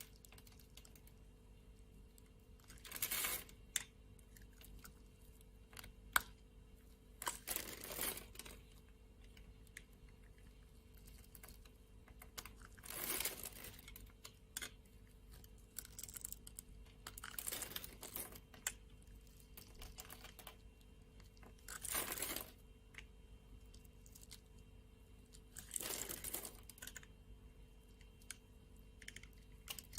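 Soap being chopped with a knife: about six short cuts through the bar, one every four to five seconds, with small ticks and clicks in between.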